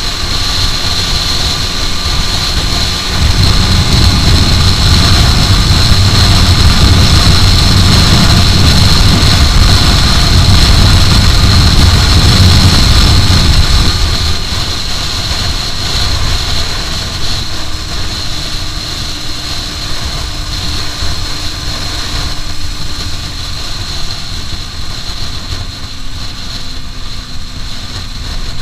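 Heavy wind noise buffeting the microphone of an Aprilia RS4 125 at speed, over the bike's single-cylinder four-stroke engine running. The wind rumble is heaviest from about three seconds in to near the middle, then eases while the engine's pitch sinks slowly in the second half.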